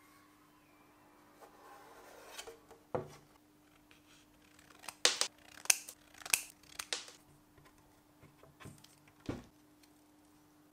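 Scissors snipping through a thin white card: about five sharp cuts in quick succession in the middle, with a couple of soft handling knocks before and after.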